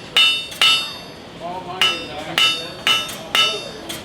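Blacksmith's hammer striking on an anvil, six ringing blows: two at the start, then after a short pause four more about half a second apart.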